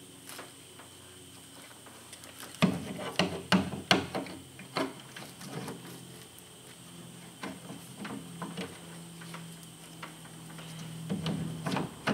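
Hard plastic clicks and knocks from a Garmin Striker 4 fish finder being handled and pressed onto its mount base, with a quick cluster about three seconds in and scattered clicks after.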